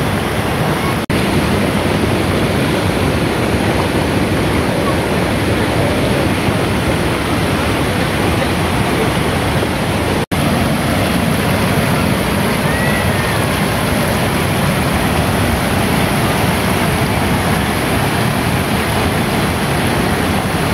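Waterfall and rushing rocky stream: a loud, steady rush of water, cut off for an instant twice, about a second in and about ten seconds in.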